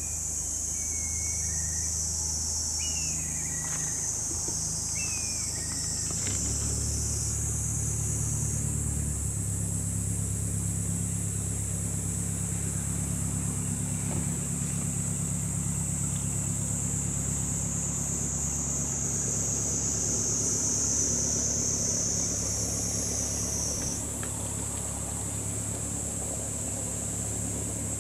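An engine running steadily with a low hum that shifts in pitch twice in the first ten seconds, under a constant high-pitched shrill buzz. A few short falling chirps sound in the first five seconds.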